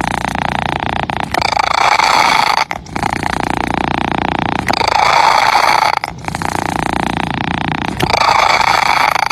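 Domestic cat purring loudly and steadily, close to the microphone. The rough, rapidly pulsing sound changes character every one to two seconds, alternating between two phases.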